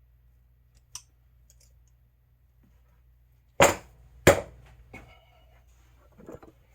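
Channel-lock pliers working a small metal D-ring: a light click, then two loud sharp metal knocks in quick succession past the middle, followed by a few fainter clicks and rattles as the ring is twisted back into line.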